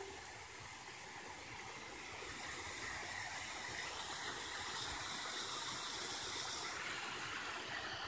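Small waterfall splashing down a rock face into a shallow pool: a steady hiss of falling water that swells slightly about two seconds in.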